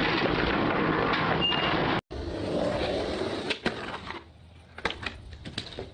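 A steady outdoor noise for about two seconds, then a sudden cut to a skateboard rolling on concrete. About a second and a half after the cut the board gives a couple of sharp clacks, it goes quieter for a moment, then a few more clacks and knocks come as it comes down.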